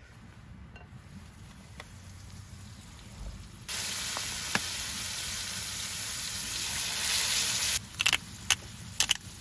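Oysters frying in butter in a cast-iron skillet, a loud even sizzle that starts suddenly about a third of the way in, grows louder, and stops abruptly. A few sharp clicks follow near the end.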